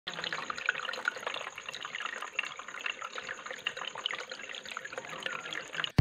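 Water trickling and splashing steadily down the ledges of a small homemade cement tabletop waterfall fountain, with a busy patter of small drips.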